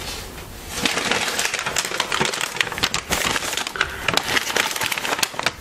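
Brown paper takeout bag crinkling and rustling as it is lifted and handled, a dense run of crackles starting about a second in.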